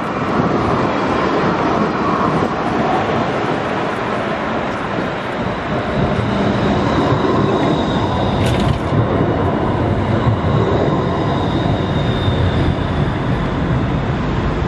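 Pesa Swing 122NaSF low-floor tram passing close by, its steady running noise on the rails carrying a faint high whine through the middle, with one sharp click about eight and a half seconds in.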